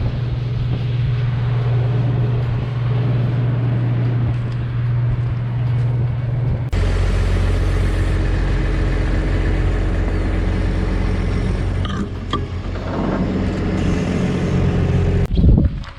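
Combine harvester's engine and machinery running with a steady low drone. About seven seconds in it cuts abruptly to a different steady drone with a deeper hum. There are a few light clicks later and a short loud knock near the end.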